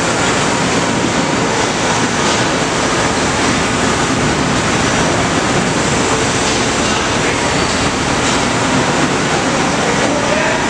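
Steady, loud machine-shop din: an even, hissing noise with a faint steady whine, unchanging throughout.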